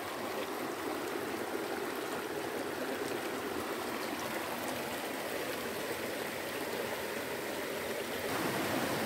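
Stream water rushing and splashing over rocks below a waterfall, a steady rush that grows a little louder about eight seconds in.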